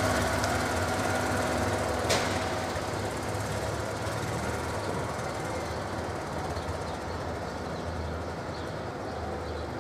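Small municipal dog-waste vacuum cleaning vehicle's engine running with a fast, steady pulsing chug, slowly fading as it drives off along the pavement. One sharp click about two seconds in.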